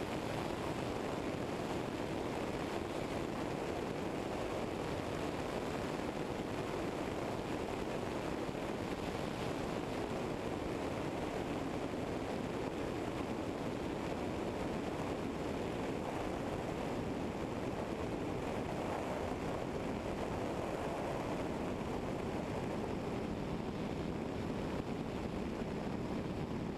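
Eurostar EV97 ultralight's engine and propeller running at idle while taxiing, a steady dull rumble mixed with wind noise on a wing-mounted microphone.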